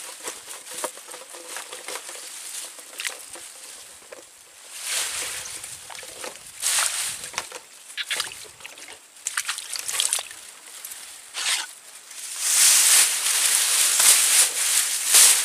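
Irregular sloshing and splashing of shallow water mixed with rustling, much louder and denser about twelve seconds in, as of someone wading through water and brush.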